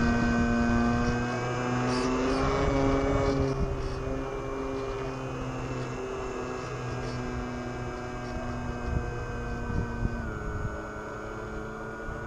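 Electric motor and propeller of a FlyZone Super Cub RC plane in flight, a steady whine whose pitch wavers briefly early on and drops a step about ten seconds in as the throttle is eased back.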